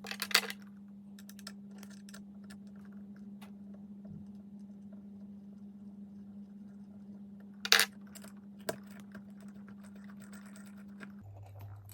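Small metal tools clinking and ticking on steel while bolts holding the part on its fixture are worked loose. Two sharp metallic clinks, one just after the start and one about two-thirds through, stand out among lighter ticks. Under them runs a steady low hum that drops in pitch near the end.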